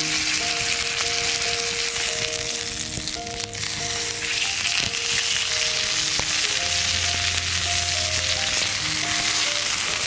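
Thick slice of pork sizzling in hot oil in a black iron pan, a steady frying hiss.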